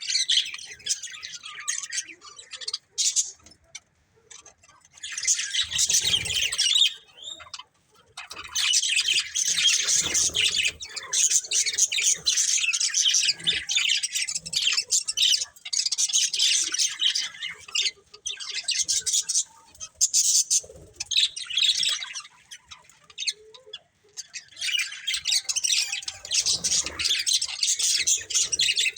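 Budgerigars chirping and chattering in rapid, high-pitched bouts, with a few brief pauses between bouts.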